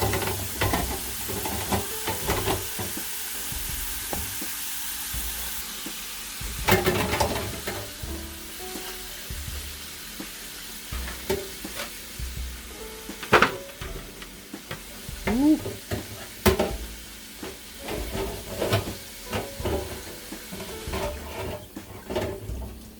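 Potato fries sizzling in hot oil in a deep fryer, nearly done, with repeated knocks and scrapes of utensils working them; the hiss is strongest in the first few seconds.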